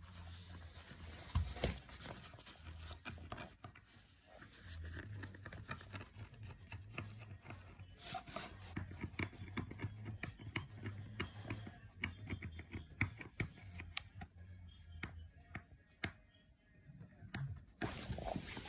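Kitten's claws scratching and snagging on cloth trousers, with rustling, scuffles and many short irregular clicks and scrapes as it pounces at a leg.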